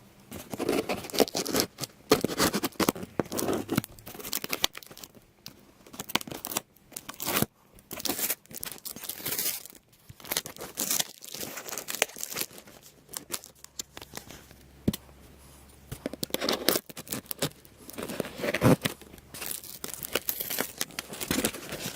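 A mail-order parcel being opened by hand: packaging tearing and crinkling in irregular bursts, with scraping and short pauses between.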